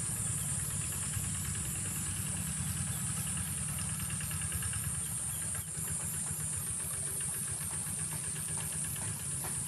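A low engine hum running steadily, under a continuous high-pitched insect drone.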